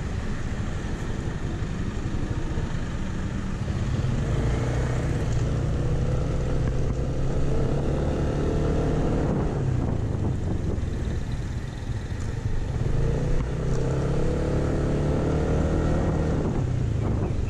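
Yamaha NMAX 155 scooter's single-cylinder engine pulling away under throttle. Its pitch climbs steadily as the scooter gains speed, falls when the throttle is eased about ten seconds in, then climbs and falls again near the end, over a low rumble of wind on the microphone.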